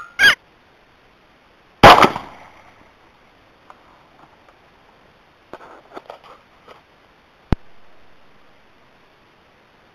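A rifle shot about two seconds in, the loudest sound, its echo dying away over about a second. Just before it come two short high squeaks, and a few faint clicks follow a few seconds later.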